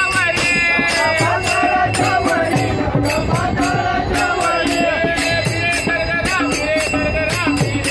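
A group of men singing a devotional bhajan in unison, with small brass hand cymbals (taal) struck on a steady beat, several strikes a second.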